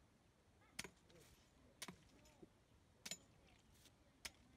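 Near silence broken by four faint, sharp clicks, a little over a second apart.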